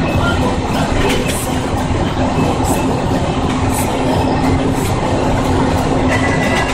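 Truck cab interior at highway speed: the engine drones and road noise fills the cab with a steady low hum, and the cab rattles now and then.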